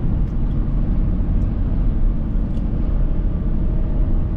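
Semi truck's diesel engine running, a steady low rumble heard from inside the cab.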